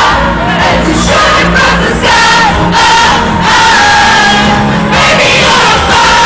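Loud live pop concert: a band playing and singing, with a large crowd singing along.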